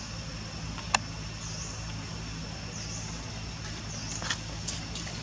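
Outdoor ambience: a steady low mechanical hum, with a short high chirp repeating about every second and a half. A single sharp click about a second in is the loudest sound, and a few fainter clicks come near the end.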